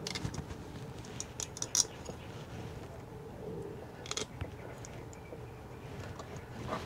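Faint scattered clicks and light metal-on-metal handling as wire terminals and nuts are worked off the copper terminal studs of a battery isolation solenoid by hand.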